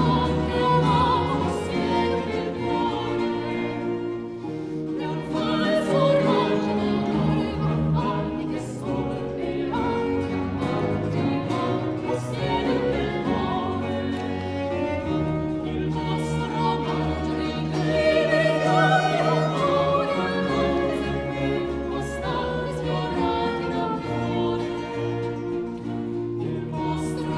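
Three sopranos singing together in harmony with vibrato, accompanied by a baroque ensemble of bowed strings and plucked strings (baroque guitar, harp).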